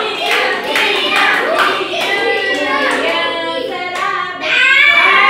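A group of children and adults singing together, with rhythmic hand clapping that is strongest in the first couple of seconds. The singing holds longer notes in the middle and swells louder again near the end.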